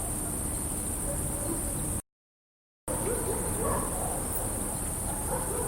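Night ambience of a dense chorus of crickets, chirping in a steady high trill. About two seconds in it cuts to dead silence for just under a second, then resumes with faint dogs barking in the distance.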